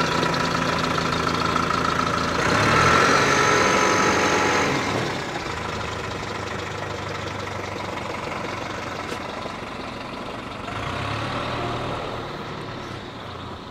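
Fendt Xylon tractor's diesel engine running at low revs as the tractor drives slowly forward, heard from inside the cab. The engine grows louder for a couple of seconds early on, then settles quieter, with a brief swell again about eleven seconds in.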